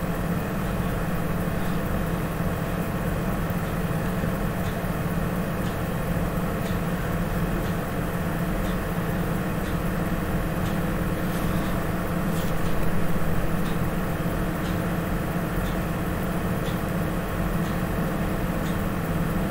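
A steady low mechanical hum, with faint light ticks about once a second.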